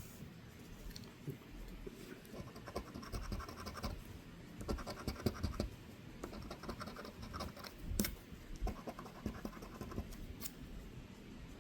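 A scratch-off lottery ticket being scratched, with repeated short rough scraping strokes as the coating is rubbed off the play area. There is a sharp tap about eight seconds in.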